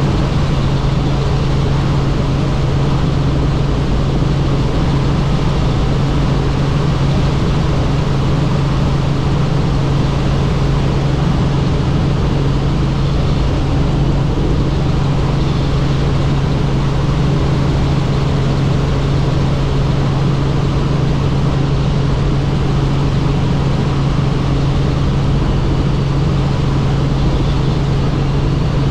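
Helicopter in flight: a loud, steady drone of engine and rotor with a strong low hum and no change in pitch or level.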